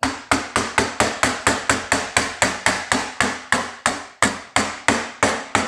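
Rubber mallet rapidly and steadily striking 18-gauge sheet steel clamped under a bar on a steel plate, about four blows a second, each with a short metallic ring, bending the sheet over the bar's edge.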